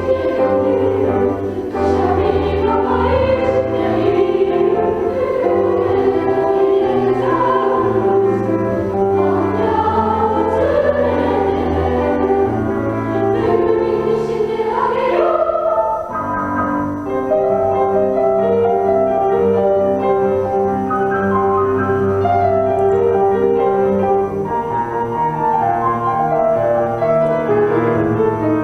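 A school class choir singing a choral song with piano accompaniment. About halfway through, the voices stop and the piano carries on alone with steady held chords.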